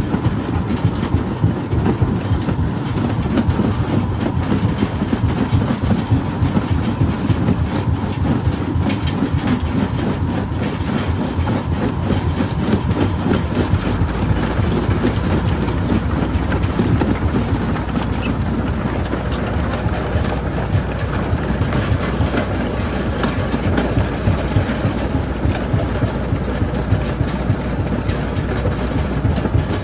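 Stone jaw crusher running: a steady mechanical rumble with dense, rapid rattling and knocking. A deeper low rumble sets in about halfway through.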